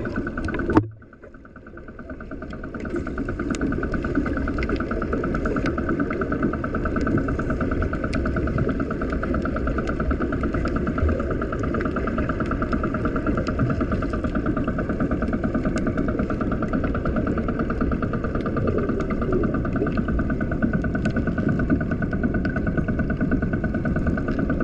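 Boat engine running steadily, heard underwater as a continuous drone with a fast even pulse.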